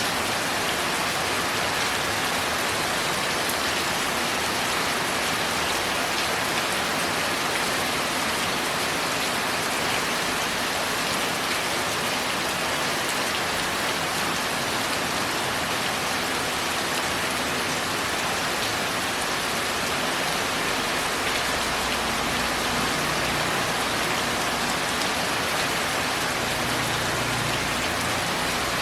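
Steady rain falling on a tile roof, a dense, even patter of drops. A low rumble joins underneath about two-thirds of the way in.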